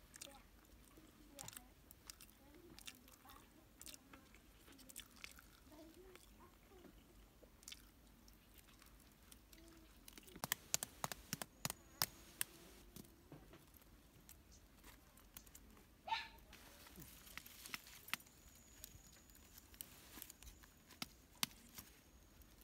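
Faint eating and eggshell sounds: soft chewing at first, then the shells of soil-cooked eggs tapped and cracked, with a quick run of sharp clicks about halfway through and scattered clicks afterwards.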